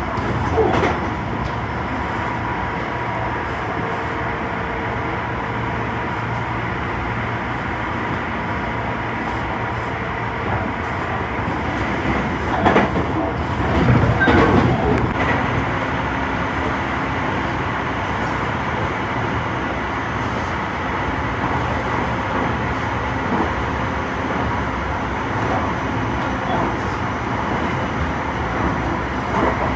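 Tobu 50090 series electric train running along the line, heard from inside a passenger car: a steady rumble of the wheels on the rails with a faint steady high tone over it. The noise swells for a few seconds about halfway through.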